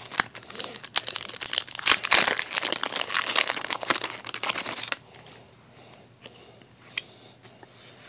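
Foil booster-pack wrapper of Pokémon trading cards crinkling loudly as it is handled and opened, for about five seconds. After that it is much quieter, with a few soft clicks of cards being flipped through.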